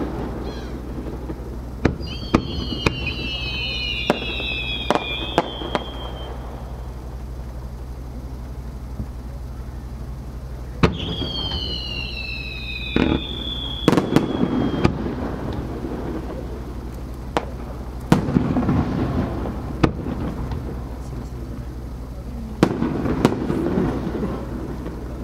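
Aerial fireworks: sharp reports from shells launching and bursting, some followed by a spell of crackling. Twice, a long whistle slides slowly down in pitch.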